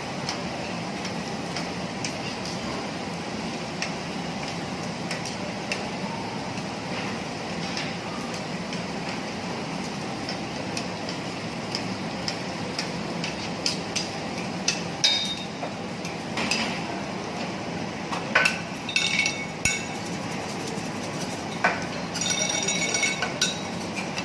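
Metal spatulas clinking and clanging on a teppanyaki griddle over a steady hiss. The hits are sparse at first and come more often and with ringing tones in the second half.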